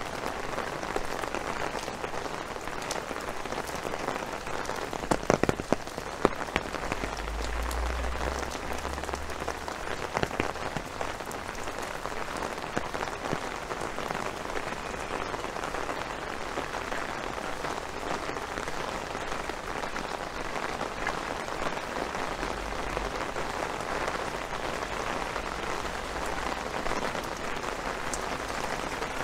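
Steady rain falling, with a few sharp, louder taps about five to six seconds in and again around ten seconds in.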